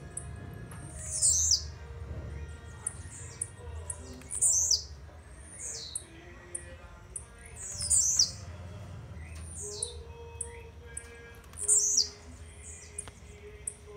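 Blue-black grassquit (tiziu) singing its short song: a sharp, quickly falling high note, repeated four times about every three to four seconds, with faint quick high ticks in between.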